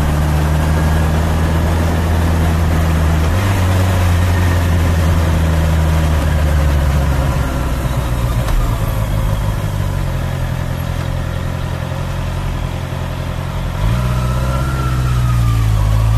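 Honda CBR650R's inline-four engine running under way, its note changing pitch in steps a few times as the bike shifts and changes speed.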